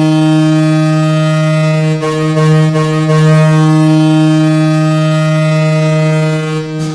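Vancouver Canucks' 1994 goal horn sounding one long, steady blast that cuts off near the end.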